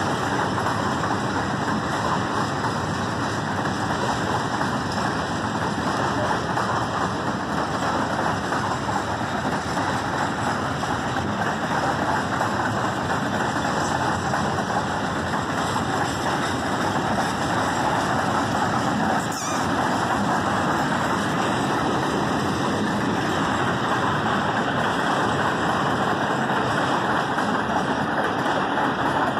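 PKP Cargo ET22 electric freight locomotives standing with their on-board machinery running: a steady, even running noise.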